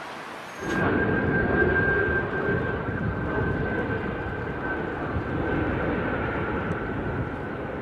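Airplane engine running steadily, a steady high whine over a low rumble, starting abruptly just under a second in.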